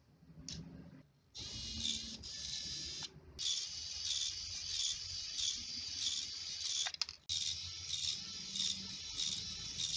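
A click, then the whine of a 9g micro servo converted to continuous rotation, driving a small screw through its plastic gear train. The high whine swells and fades in a steady rhythm, stopping briefly twice.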